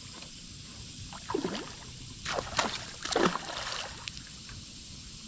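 A hooked longnose gar splashing and thrashing at the water's surface against a fly line, in three bursts of splashing about a second apart, from about one to four seconds in.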